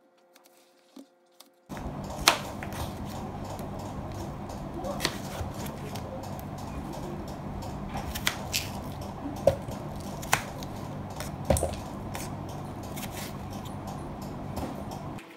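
Kitchen knife slicing watermelon and knocking on a wooden cutting board: a series of sharp, irregular knocks over a steady low hum, starting suddenly about two seconds in.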